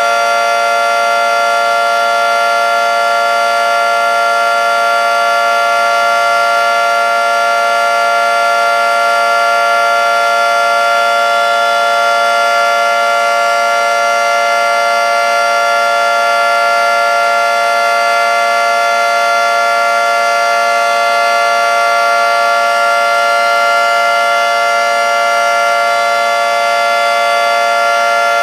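Federal Signal 2T22 dual-tone electromechanical outdoor warning siren sounding in its monthly test: a loud, steady two-tone chord held at a constant pitch.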